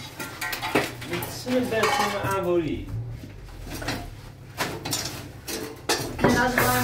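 Metal objects clattering and clinking as a tubular metal frame and other scrap are pulled and shifted out of a junk pile, with many sharp knocks at uneven intervals.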